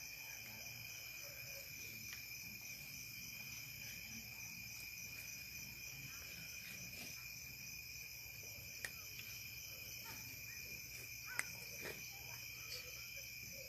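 Steady chorus of insects trilling, with a couple of faint clicks in the second half.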